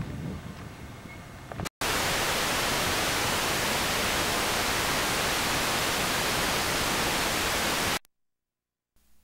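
Loud, steady hiss of blank videotape static that cuts in abruptly under two seconds in, after a brief burst of outdoor camcorder sound, and cuts off to silence about a second before the end.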